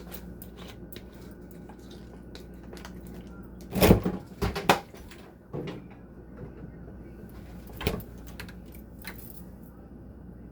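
Kitchen handling noises: scattered light clicks, a loud cluster of clunks and knocks about four seconds in, and one more sharp knock near eight seconds, like containers and a cupboard being handled.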